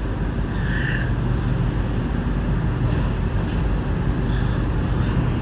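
Shenzhen Metro Line 1 train running, a steady low rumble and hum heard from inside the carriage, with a short higher squeal about a second in.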